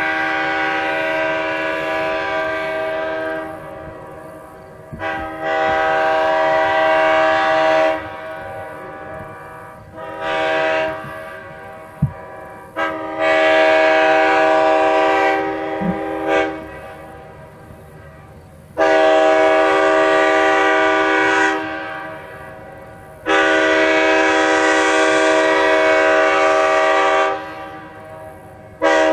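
A multi-chime locomotive air horn blown in a string of blasts, mostly three to four seconds long with one short toot among them. Each blast sounds a steady chord of several notes.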